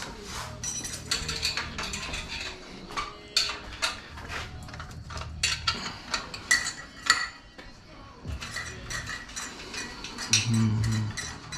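Hand tools working on bolts and metal parts: a socket ratchet clicking, with irregular clinks and knocks of metal on metal. A brief low hum comes about ten seconds in.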